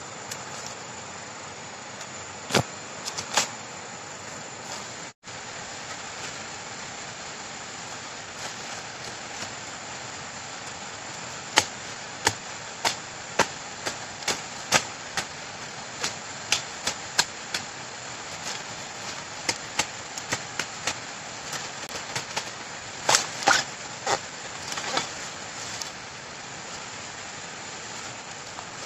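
Machete chopping at the base of bamboo shoots: a few strikes in the first seconds, then a run of sharp chops about two a second through the middle and a quick flurry near the end, over a steady hiss.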